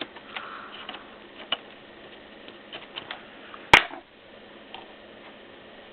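Scattered small clicks and ticks of a laptop's case and screws being worked on during disassembly, with one sharp, louder click a little before four seconds in.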